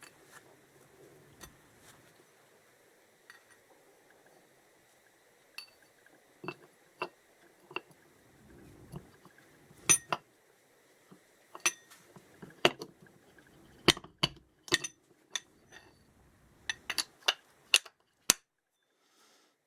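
Small metal engine parts and hand tools clinking and clicking on a workbench as an engine is taken apart. The knocks are irregular: a few at first, then a quicker run of sharp clinks.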